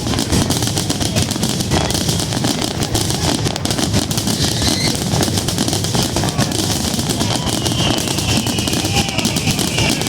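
Fireworks grand finale: a dense, unbroken barrage of overlapping bangs and crackling shell bursts with a heavy rumble beneath.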